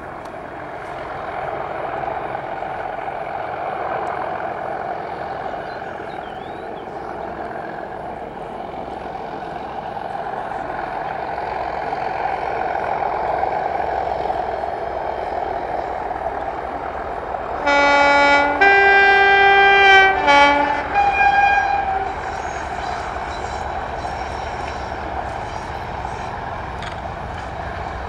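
Heritage diesel locomotives, a Class 37 leading, working hard under power as they approach, their engine noise building. About 18 seconds in, a locomotive's two-tone horn sounds low, high, low, high over about four seconds, and then the engines carry on.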